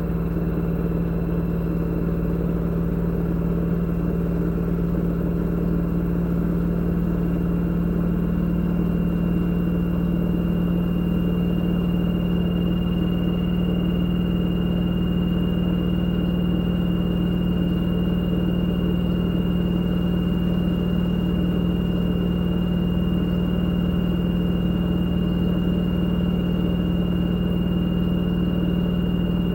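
LG F2DR5S8S6W direct-drive washing machine in its spin cycle, the drum spinning at high speed. It gives a steady hum and a thin high motor whine, and the whine grows stronger about ten seconds in.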